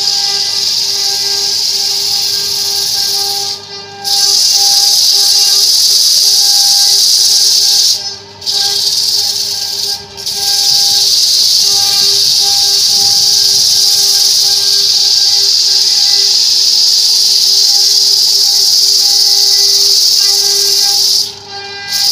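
Belt-driven wood lathe turning a wooden disc: a steady, loud hiss of a hand tool cutting the spinning wood over a steady motor hum. The hiss breaks off briefly about four, eight, ten and twenty-one seconds in, as the tool leaves the wood.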